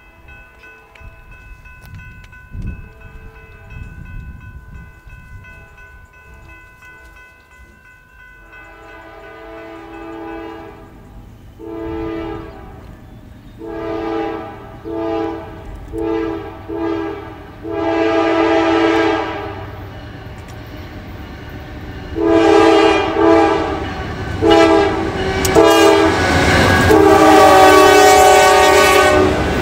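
Diesel freight locomotive's air horn sounding a series of blasts for grade crossings, short and long, getting louder as the train approaches. A fainter, steady horn note is held through the first several seconds.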